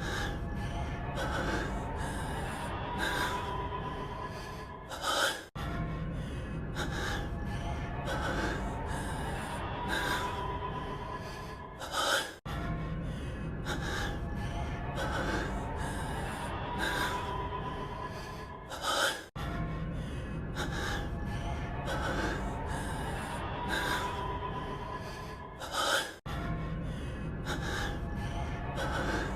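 A man's heavy breathing and gasps from an anime voice track. The same clip of about seven seconds loops over and over, with a short break at each repeat.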